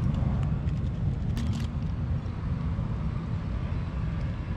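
Steady low rumble of wind on the camera microphone over open water, with a few short splashy clicks about a second and a half in as a small barracuda is lifted out of the water onto the float tube's apron.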